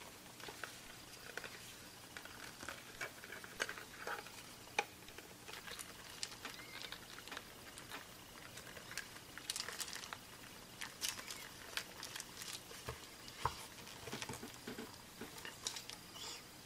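Faint, scattered clicks, taps and scrapes of hands handling and pressing on a Kaiweets HT118A digital multimeter's plastic case as it is fitted back together. The clicks come more thickly about two-thirds of the way through.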